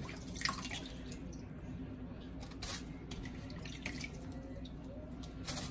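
Faint water dripping and light clicks as wet raw shrimp are drained and handled, over a low steady hum.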